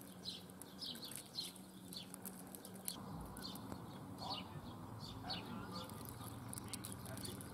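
Small birds chirping in short, repeated calls, about two a second, with a few lower calls in the middle and a faint low steady hum underneath.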